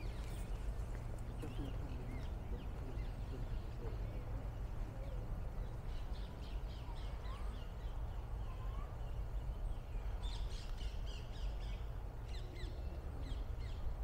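Birds giving short, high calls in scattered clusters, most of them in the second half, over a steady low rumble.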